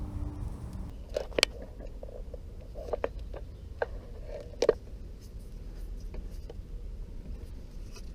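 A handful of sharp clinks and knocks, about five spread over the first five seconds, as tools or parts are handled during scooter drivetrain work. A low hum dies away within the first second.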